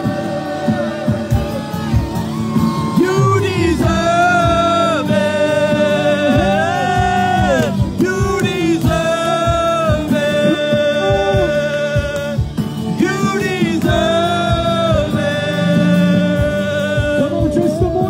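Live gospel worship music: a singer holds long notes, sliding between pitches, over steady band accompaniment.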